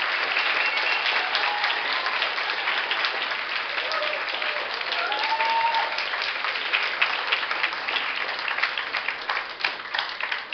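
Audience applauding: steady, dense clapping from many people that thins out near the end.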